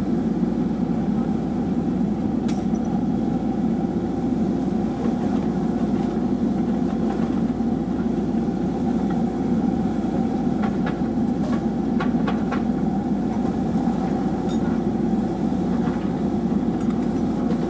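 Kobelco excavator's diesel engine running steadily, heard from inside the cab, while the machine holds a suspended load. A few faint, light clicks sound about a third of the way in and again near the middle.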